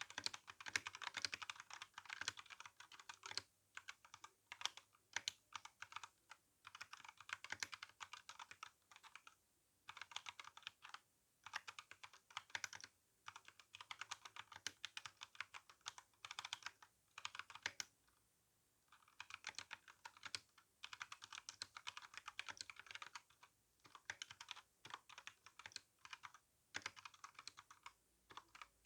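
Continuous typing on an RK61 mechanical keyboard fitted with brown (tactile) switches and GSA keycaps: fast runs of key clicks, with short pauses now and then.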